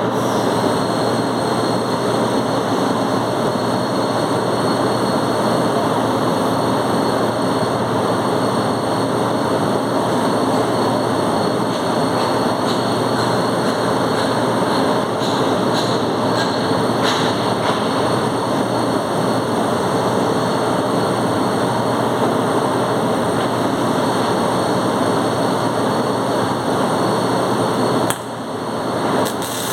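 Welding arc crackling steadily for a long run, breaking off briefly near the end and then starting again.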